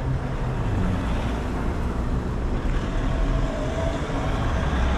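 Street traffic going by, vehicle engines running in a steady low rumble.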